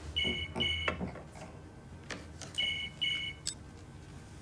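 Phone ringing with an electronic ringtone: a pair of short two-tone beeps, heard twice about two and a half seconds apart.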